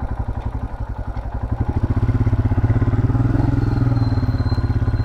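Single-cylinder Royal Enfield Himalayan 411 motorcycle engine running with a steady pulsing beat, getting louder about two seconds in as it takes more throttle.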